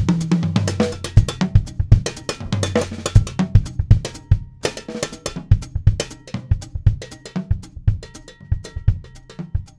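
Melodic drum-kit solo: fast strikes on tuned toms, snare and bass drum, with the toms' pitches carrying a tune. In the second half, steady ringing tones sound alongside the hits.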